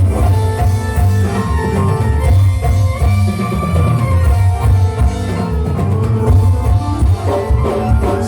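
Live dangdut band music over a loud sound system: an instrumental passage with guitar and drums over a heavy, pulsing bass beat.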